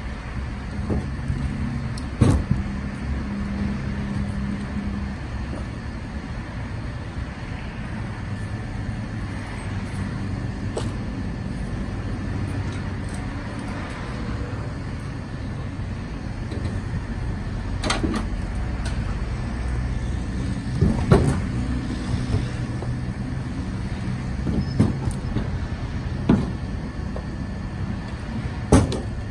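Split green hickory firewood knocking as pieces are handled and stacked: several sharp wooden knocks a few seconds apart, the loudest about 2 seconds in and about 21 seconds in, over a steady low mechanical hum.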